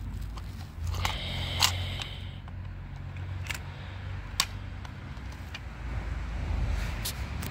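A few sharp plastic clicks and knocks from a toy car-carrier truck and its die-cast cars being handled, over a steady low rumble.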